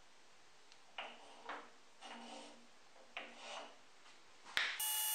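A few soft scrapes and rubs, then a sharp click and, near the end, a circular saw that is suddenly heard already running at speed, with a steady whine.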